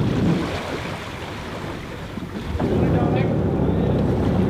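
Wind rumbling on the microphone and water noise aboard a RIB under way. It eases off about a second in and picks up again about two and a half seconds in.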